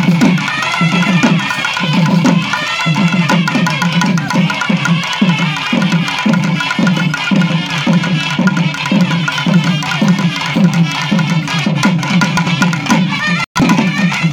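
Live karagattam folk music: thavil barrel drums beaten in a steady, driving rhythm of about two strong beats a second, with a wavering high melody over them. The sound cuts out for an instant near the end.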